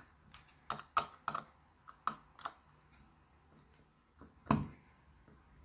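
Scattered light clicks and taps of small plastic and metal parts being handled and pulled out while a mini USB fan is taken apart, with one louder click about four and a half seconds in.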